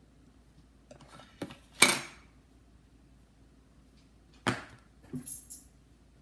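A large plastic storage container being handled and its lid worked open: a few light knocks, then two sharp snaps of plastic about two and a half seconds apart, the first the loudest, followed by a few smaller clicks.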